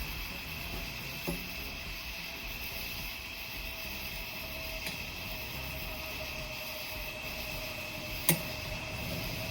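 Plastic animatronic leg parts being pushed together: a few faint clicks and knocks, then one sharp snap near the end as the pieces connect, over a steady background hum.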